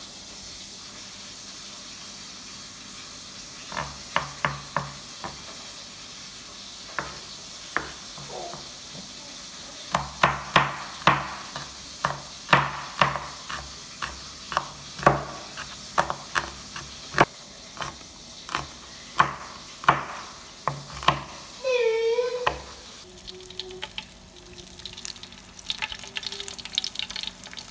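Pork sizzling as it fries in oil in a pan, while a spatula stirs it and knocks against the pan again and again. Near the end there is a brief squealing scrape, then a fast, dense spitting crackle.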